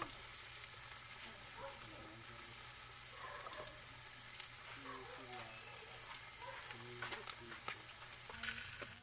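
Sliced potatoes sizzling steadily as they fry in oil in a pan, with a few sharp clicks near the end.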